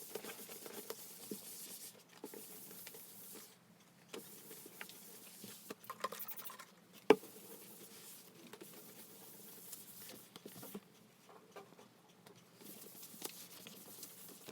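Quiet clicks, taps and rustling of small objects being handled, with one sharper click about seven seconds in.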